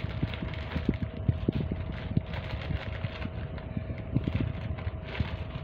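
Handling noises: irregular soft knocks and rustles as clothing and packaging are moved about, over a steady faint hum.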